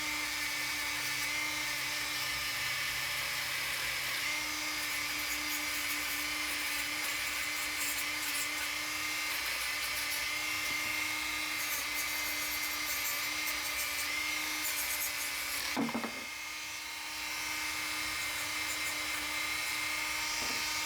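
Dremel rotary tool spinning a 320-grit EZ Lock abrasive buffing wheel against a wood carving to smooth out the fuzzy fibres: a steady high-pitched whine. The whine dips in pitch for a moment about three-quarters of the way through, then comes back up.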